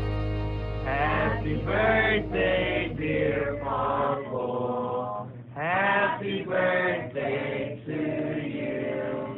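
A group of people singing a birthday song together, heard through a phone's thin-sounding recording. Soft background music runs underneath and its deep bass drops out about four seconds in.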